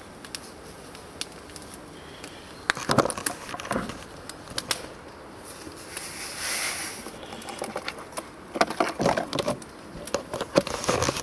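A paper milk powder sachet crinkling as it is opened and handled, with a soft hiss about six seconds in as the powder pours out into a steel pot, then more dense crinkling near the end.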